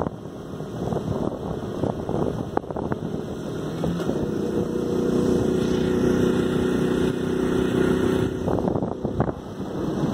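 Wind rushing over the microphone while travelling along a road. From about four seconds in, a vehicle engine runs at a steady pitch, then cuts off suddenly about eight and a half seconds in.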